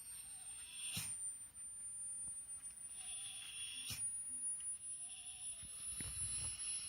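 Hearing-test sine tone, very high and thin, gliding slowly upward in pitch, with two short clicks over it about a second in and about four seconds in.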